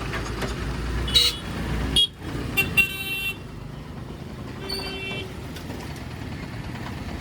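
Several short horn toots, the longest lasting about half a second around three seconds in, over a low engine rumble that cuts off abruptly about two seconds in.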